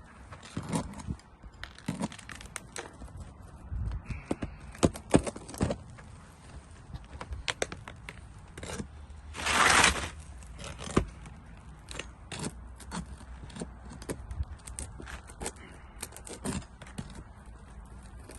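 Roofer's work on asphalt shingles: scattered clicks, knocks and scrapes, with one longer rasp lasting about a second near the middle.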